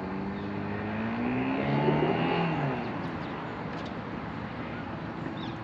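Small boat's outboard motor running past, its engine note rising in pitch and growing louder to a peak about two seconds in, then dropping and fading away.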